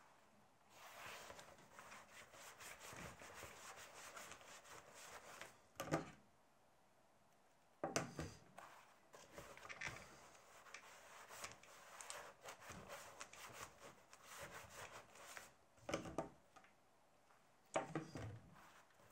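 Hands rubbing and pressing a glued leather panel flat on a wooden tabletop, a faint scuffing, broken by four short knocks.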